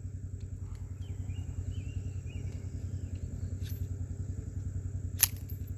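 A steady, low engine-like rumble pulsing several times a second, with a single sharp click about five seconds in.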